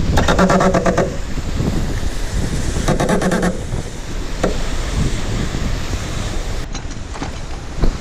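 Wind and water rushing past a Volvo 65 racing yacht under sail, with wind buffeting the microphone. Twice, near the start and about three seconds in, a short pitched buzz rises above the rush.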